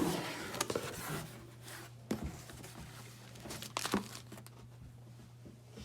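Crinkling and rustling with a few sharp knocks, over a faint steady hum.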